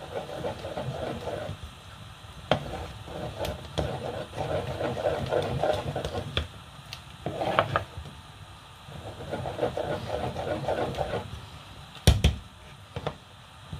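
Wooden spatula stirring thick ogbono soup in an aluminium saucepan, in stretches of a second or two, with several sharp knocks of the spatula against the pot; the loudest knock comes near the end.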